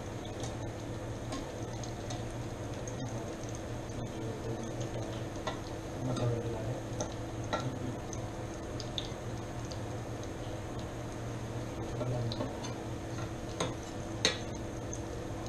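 Scattered light clicks and clinks of a cooking utensil against a pot as dough balls are turned in deep-frying oil, with one louder clink near the end, over a steady low hum.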